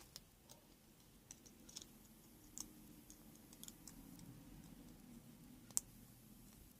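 Faint clicks and taps of small plastic phone parts as the cover is fitted onto the phone's lower module, with one sharper click near the end.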